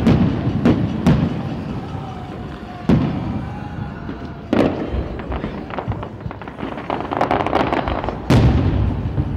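Aerial firework shells bursting with about five sharp bangs, the biggest near the end, each dying away afterwards. Shortly before the last bang comes a spell of rapid crackling.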